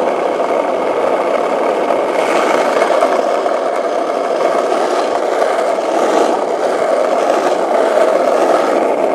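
Skateboard wheels rolling over asphalt: a loud, steady rolling rattle.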